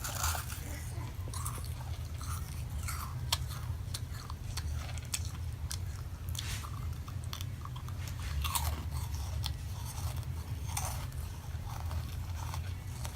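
Crisp meringue cookies being bitten and chewed, with many short, sharp crunches at an uneven pace.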